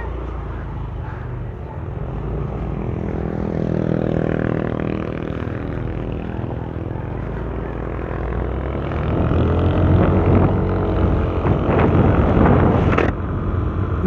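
Yamaha Aerox 155 scooter engine pulling away and accelerating, its pitch climbing and then holding steady as it cruises, with rushing wind and road noise growing louder in the last few seconds.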